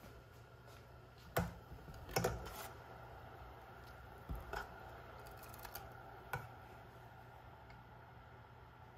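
Stainless steel ladle clinking and scraping against the sides of a stainless steel pot while stirring milk: a handful of sharp clinks spread over several seconds, over a steady low hum.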